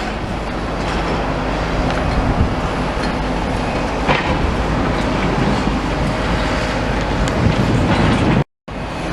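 Heavy diesel demolition machinery running steadily with scattered knocks, as a machine tamps crushed rubble flat. The sound cuts out briefly near the end.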